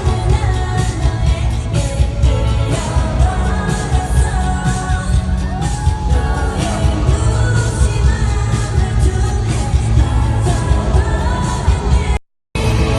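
Live pop music at a sound check: a sung vocal over a steady drum beat and heavy bass, played loud through the venue's sound system. It drops out completely for a split second near the end.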